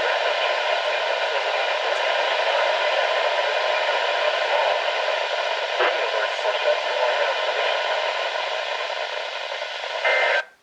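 NOAA Weather Radio receiver hissing with static from weak reception, a broadcast voice faint beneath the noise. The audio cuts out suddenly near the end.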